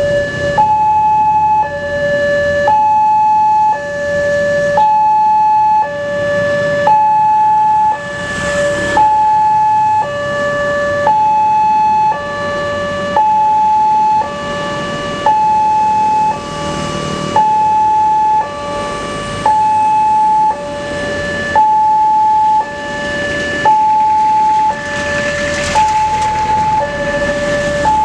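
Railway level-crossing alarm sounding its two-tone electronic warning, alternating a high and a low note about every 0.7 s. This signals that a train is approaching and the barriers are down. A few swells of rushing noise pass under it.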